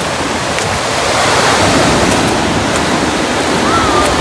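Steady rush of ocean surf breaking on the beach, with some wind on the microphone.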